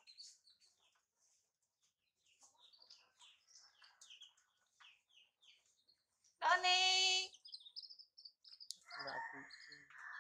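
Small birds chirping in the background, with one loud, drawn-out chicken call about six and a half seconds in, lasting about a second. A rougher, noisier sound follows near the end.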